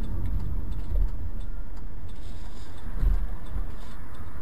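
Steady low rumble of a car driving, engine and road noise heard from inside the cabin, with soft bumps about one and three seconds in.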